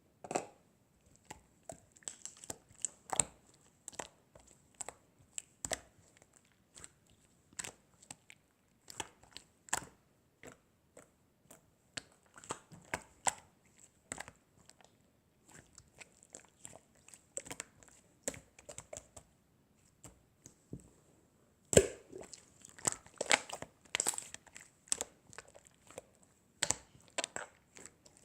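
Irregular crinkling, crackling and clicking handling noises, densest in the last few seconds, over a faint steady high whine.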